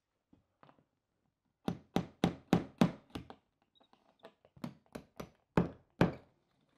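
Claw hammer tapping a plastic wall anchor into a drilled hole in the wall: a quick run of about five sharp knocks, a few lighter taps, then another run of about five knocks.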